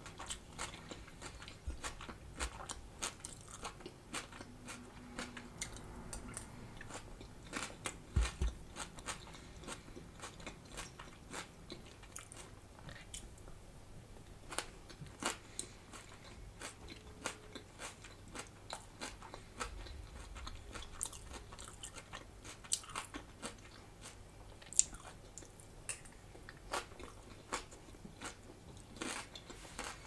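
Close-miked chewing of crunchy raw salad of red cabbage and iceberg lettuce: a stream of irregular crisp crunches, a couple of them louder than the rest.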